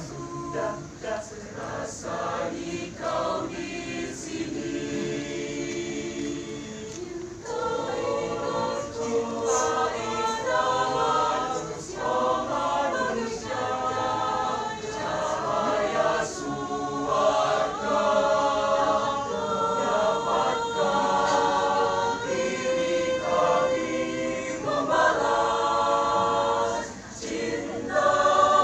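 Mixed choir of men and women singing a song in several voice parts, unaccompanied, with sustained chords; it drops back briefly near the end, then comes in louder.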